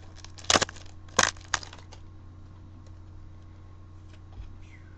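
Foil booster-pack wrapper of Yu-Gi-Oh trading cards being handled, giving three sharp crinkling crackles within the first two seconds.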